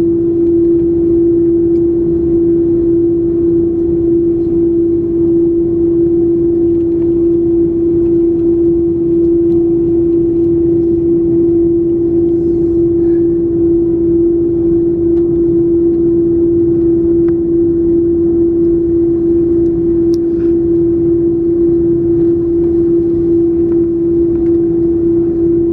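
Steady cabin drone inside an Airbus A330 airliner taxiing with its engines at low power: an unchanging hum over a low rumble.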